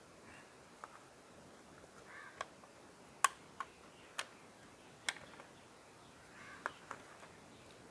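Scattered light clicks and taps, about eight in all, of a digital multimeter's plastic case and small parts being handled as its back cover is opened.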